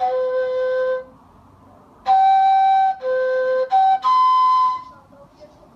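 Nay (Arabic end-blown reed flute) played in breathy held notes. One note sounds, then after a pause of about a second comes a short phrase of four notes, the last one the highest.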